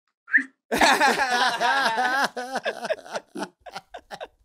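A woman laughing, starting about a second in with a quick run of high pulses and tailing off into shorter, breathier chuckles.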